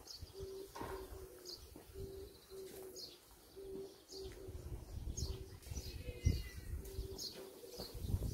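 Birds calling: a short low note repeated about twice a second, with brief high chirps over it.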